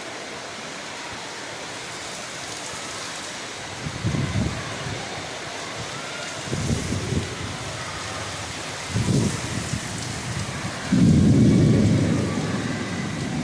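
Steady rainfall, broken by four short, low rumbling surges, the loudest about eleven seconds in.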